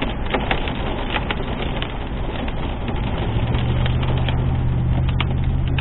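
Pea-sized hail and heavy rain pelting a car, a dense patter of sharp ticks over a steady hiss. A low steady hum comes in a little over three seconds in.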